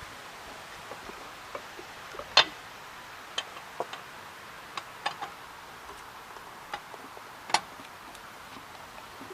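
Irregular sharp clicks and knocks, about a dozen, over a steady hiss. The loudest comes about two seconds in and another about three-quarters of the way through.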